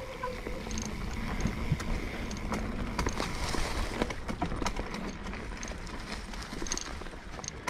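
Mountain bike riding down a dirt forest trail: tyres running over dirt and dry fallen leaves with a steady rumble, and frequent irregular rattling knocks as the bike jolts over bumps.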